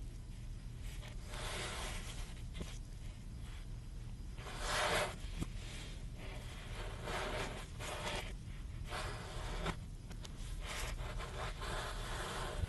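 Kinetic sand being cut and scraped with a knife: a run of soft, gritty scraping strokes, the longest and loudest about five seconds in.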